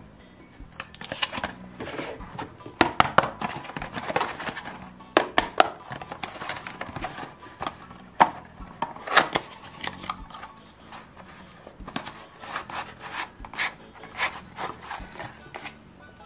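Close-up handling sounds: a card sheet being rubbed, rustled and folded by hand, with irregular sharp taps and clicks of plastic doll toys against the tabletop.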